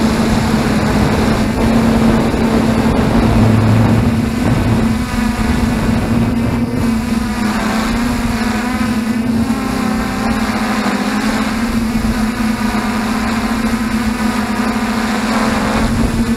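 F450 quadcopter's brushless motors and propellers whining steadily, heard through the onboard camera's microphone, with a little wavering in pitch as the throttle changes.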